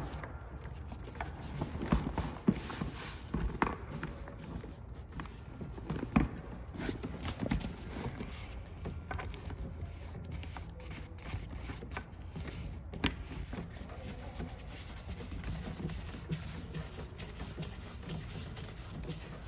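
Handling noise from a scuba backplate harness and padded back pad being worked by hand while a bolt is fitted through them: irregular small knocks and clicks with fabric rustling.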